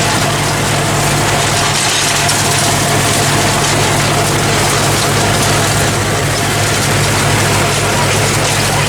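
Massey Ferguson 265 tractor engine running steadily, heard from inside the cab.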